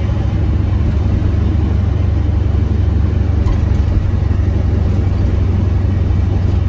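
1976 Chevrolet K10 pickup driving along, its 350 small-block V8 and road noise heard from inside the cab as a steady low rumble.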